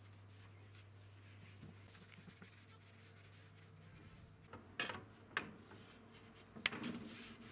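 Faint rubbing of a hand working boiled linseed oil into a wooden veneered tabletop, then three sharp knocks in the second half, the last the loudest.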